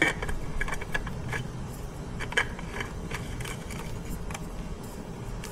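New oil filter being fitted to a Yamaha 115 outboard: scattered light metallic clicks and scrapes as it is handled and threaded on, the sharpest about halfway through, over a steady low background rumble.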